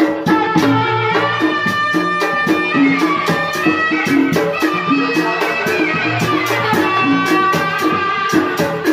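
Tanji band music for kuda renggong: held melody notes over a fast, steady beat of drum and cymbal strokes.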